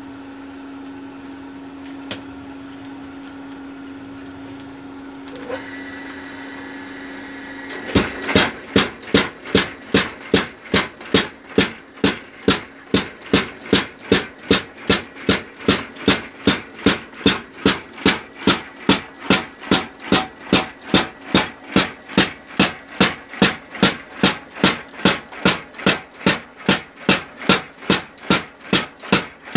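A steady hum for the first several seconds. Then a home-built 25 kg mechanical power hammer starts striking hot steel at an even pace of about two blows a second, each blow a sharp metallic impact.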